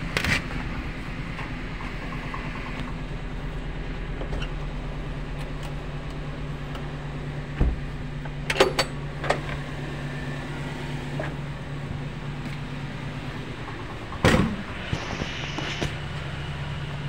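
Suzuki Carry Futura pickup's engine idling steadily while misfiring and shaking the cab, as if one cylinder's ignition is not firing. A few sharp knocks of handling in the cab come about halfway through and again near the end.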